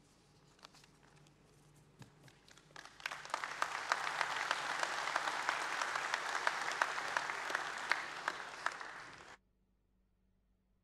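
Audience applauding: a few scattered claps build into full applause about three seconds in, which cuts off suddenly near the end.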